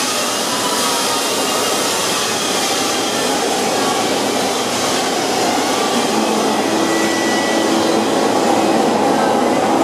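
Steady rumble of CTA Blue Line 2600-series subway trains in the tunnel: one train running away and the next approaching, growing a little louder near the end, with faint brief whines around seven seconds in.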